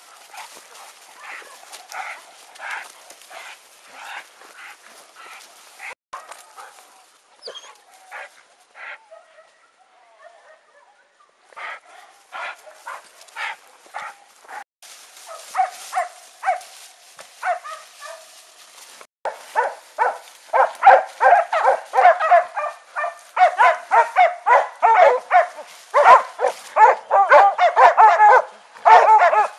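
Hunting dogs barking and yelping in quick repeated volleys at a wild boar, fainter at first and becoming much louder and more frantic from about two-thirds of the way through.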